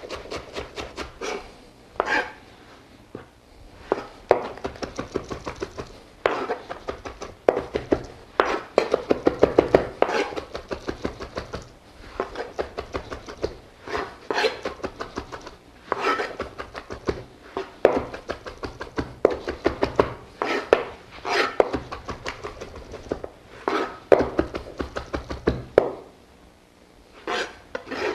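Chef's knife chopping fresh parsley on a cutting board, in quick runs of rapid strokes with short pauses between them.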